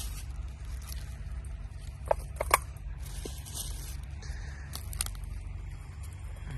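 Baked buns being torn by hand and dropped into a stainless steel dog bowl, with a few sharp clinks, the loudest a close pair about two seconds in, over a steady low rumble.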